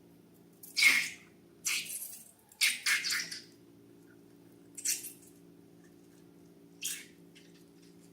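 Slime being squeezed and pressed, squelching in about five short wet squishes, the loudest about a second in, over a faint steady low hum.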